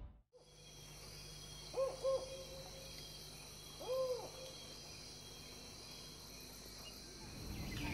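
Bird hooting calls: two short hoots close together about two seconds in, then one longer hoot about four seconds in, each rising and falling in pitch. Faint insect-like ambience with steady high tones underneath.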